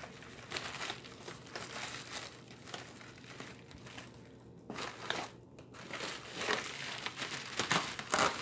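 Plastic mailer bag and paper packing crinkling and rustling as the package is handled and lifted out of a cardboard box, with a quieter pause a little past the middle and louder rustles near the end.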